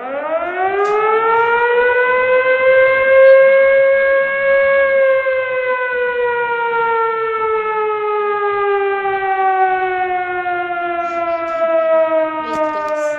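A siren winds up quickly to a loud, steady wail, then slowly falls in pitch as it winds down.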